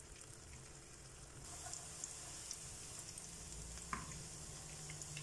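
Hot oil sizzling faintly around a spiral of mashed potato dough as it fries in a pan, with small scattered crackles. The hiss grows stronger about a second and a half in.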